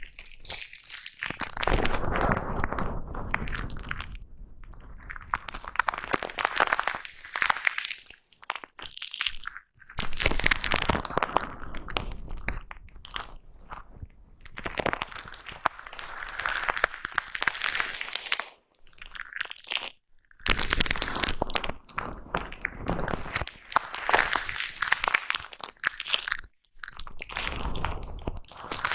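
Foam brush rubbed and scratched directly over a microphone, giving close, dense crunchy scratching in spells of a few seconds with brief pauses between them.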